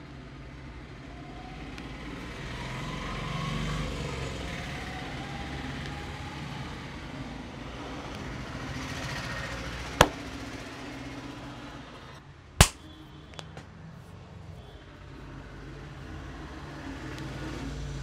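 Two sharp skin-cracking snaps about two and a half seconds apart, as the skin over the upper back and shoulder is pinched and yanked during a barber's cracking massage. Steady background hum underneath.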